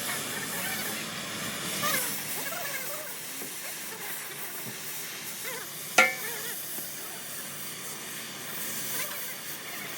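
Steady hissing, crackling noise of metal repair work on an excavator bucket, with one sharp knock about six seconds in.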